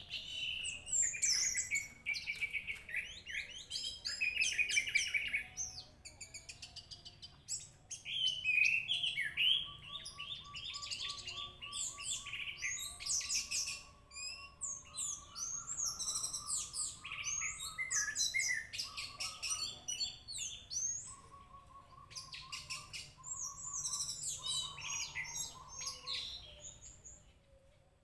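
Orange-headed thrush (anis merah) singing a long, rapid, varied song of high whistles, chirps and trills, with a lower run of repeated notes through the middle.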